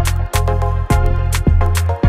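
Background music with a steady beat of a bit under two drum hits a second, a deep held bass line and a melodic line above it.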